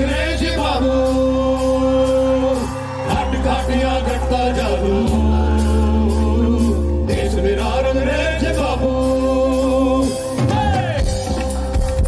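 Fusion rock band playing live: a man singing over electric bass and electric guitar, with a steady held note underneath.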